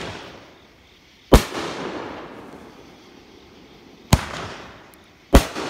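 Raccoon Fireworks 500-gram seven-shot cake firing aerial shells that break overhead. There are three sharp bangs, each trailing off, the first about a second and a half in, the second about four seconds in and the third just over a second later.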